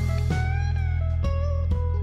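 Music: a plucked guitar melody of single notes, some sliding in pitch, over a sustained low bass.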